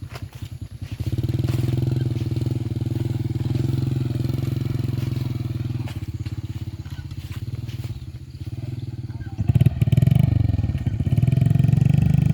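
Small motorcycle engine idling with a pulsing beat, then running louder and steadier about a second in as it pulls away. The engine note changes and gets louder again near the end.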